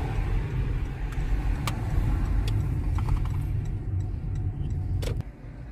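Low, steady road and tyre rumble inside a moving car's cabin, with a few faint clicks. The rumble drops off suddenly about five seconds in.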